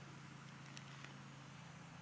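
Near silence: a faint steady low hum, with two or three faint ticks a little under a second in.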